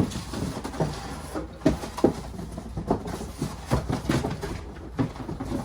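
Animatronic parts and packaging being handled in a cardboard box: irregular knocks, clicks and rustling, the sharpest about two seconds in.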